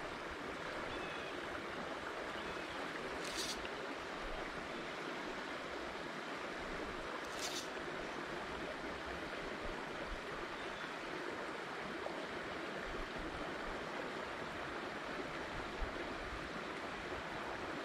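Steady rushing of a rain-swollen creek's flowing water, with two brief hisses about three and seven seconds in.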